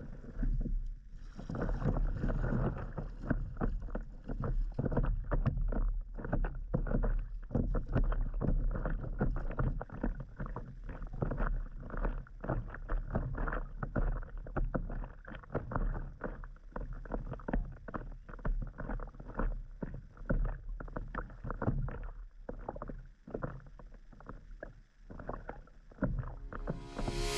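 Small waves lapping and slapping irregularly against the hull of an inflatable stand-up paddle board, over a steady low rumble of wind on the microphone.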